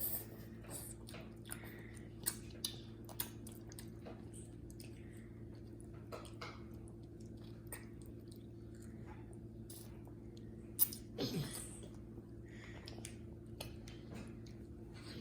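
Close-up chewing and wet mouth clicks of someone eating spaghetti, with scattered short smacks over a faint steady electrical hum. A sharp click comes about eleven seconds in, followed by a brief falling sound.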